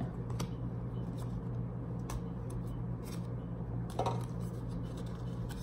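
Trading cards being handled: faint light clicks and rustles, with a slightly louder rustle about four seconds in, over a steady low hum.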